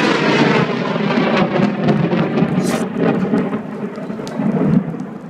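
Loud thunder from a very close lightning strike rolling and rumbling, with sharp crackles, easing off near the end. Rain falls throughout.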